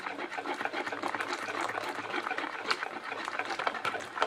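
Eggs being stirred fast by hand in a bowl, a quick continuous clatter of small taps as the utensil scrapes and strikes the sides, while hot honey syrup is poured in a thin stream to temper the eggs without scrambling them.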